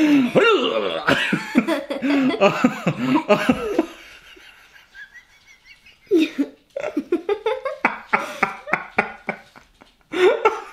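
A girl and a man laughing in choppy fits, breaking off for a couple of seconds midway and starting up again.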